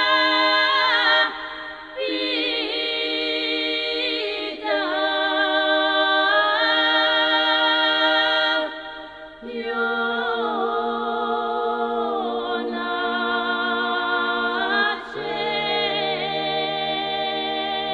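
Bulgarian women's choir singing a cappella folk polyphony: sustained close-harmony voices with vibrato, in long held phrases, with a low drone note held beneath from about halfway.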